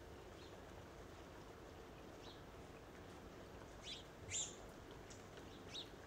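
Faint steady rain falling, with a bird chirping several times over it; the two loudest chirps come about four seconds in.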